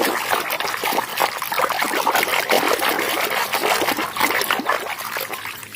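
Running water splashing and spattering over a muddy toy as it is rinsed, fading away near the end.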